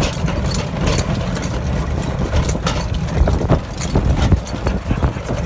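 Low, uneven rumble of a vehicle driving over a rough gravel path, with scattered knocks and rattles.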